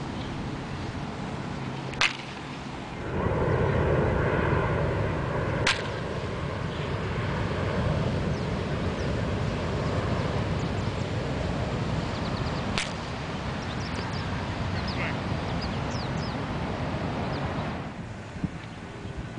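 Three sharp cracks of a baseball bat striking a ball, several seconds apart, over a steady background rush.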